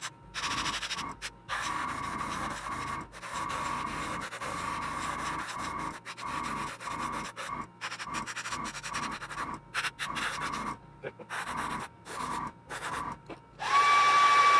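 Airbrush spraying a light coat of acrylic paint, its hiss starting and stopping in many short trigger bursts with a thin whistle in the air stream. A longer, louder blast comes near the end.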